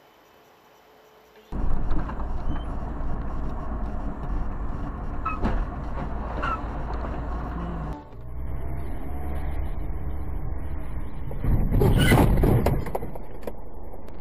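Engine and road noise heard from inside a moving car through a dashcam microphone. It is quiet at first, then starts abruptly, breaks off briefly partway through, and grows louder for a moment near the end.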